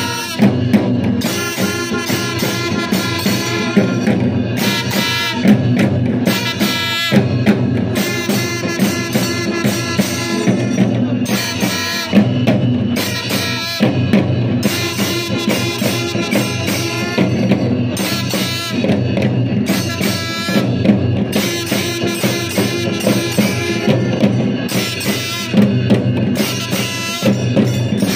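Kailaya vathiyam temple ensemble playing: drums and hand cymbals beat a driving rhythm under held notes from long brass horns, blown in phrases of a few seconds.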